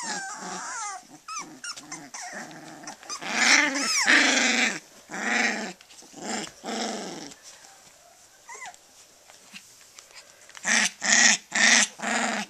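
Three-week-old Australian Shepherd puppies play-growling and whining as they wrestle, in short bursts of calls. High gliding whines come at the start, the calls drop away for a few seconds past the middle, and a run of loud short calls comes near the end.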